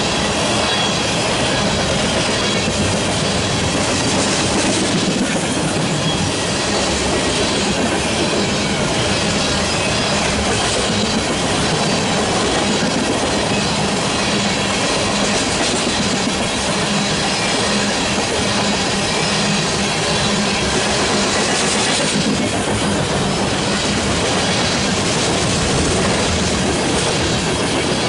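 Empty oil tank cars of a long freight train rolling past: the steady, unbroken noise of steel wheels running on the rails.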